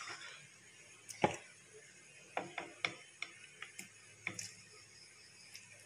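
Light, irregular clicks and knocks, the loudest about a second in, as steamed cauliflower florets are tipped from a plate into a bowl of batter, the plate's rim knocking against the bowl.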